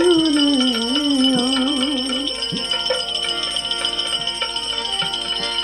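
Bhajan music: a male singer holds and bends a long wavering note that sinks and fades over the first two seconds. Under it run a steady sustained accompaniment, continuous jingling of small cymbals or bells, and a few drum strokes.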